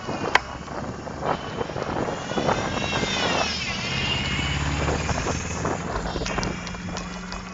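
Lectric XP 2.0 e-bike ridden over rough grassy ground, with rattles and knocks from bumps. A high motor whine dips and rises in pitch about halfway through, over a steady low hum.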